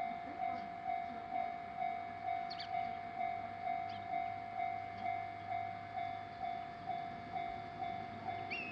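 Japanese railway level-crossing warning bell ringing steadily, a single-pitched electronic ding repeating a little over twice a second.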